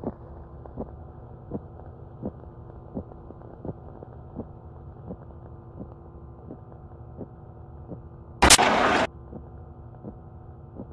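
Electronic film score: a steady low drone of several held tones with a soft pulse about every three quarters of a second, like a slow heartbeat. Late on, a sudden loud burst of hissing noise lasts under a second, then the drone and pulse carry on.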